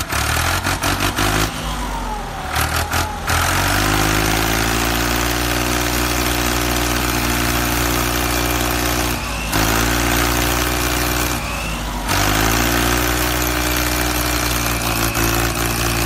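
Tractor engine running steadily at an even low pitch, dropping out briefly twice, around nine and twelve seconds in.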